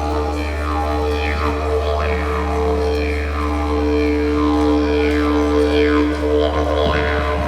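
Yidaki (didgeridoo) playing a steady low drone, with falling overtone sweeps shaped by the player's mouth recurring about once a second.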